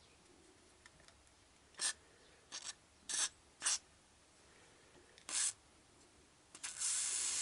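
WD-40 aerosol sprayed through its red extension straw in five short hissing bursts, then one longer burst of about a second near the end, working penetrating oil into a seized alternator.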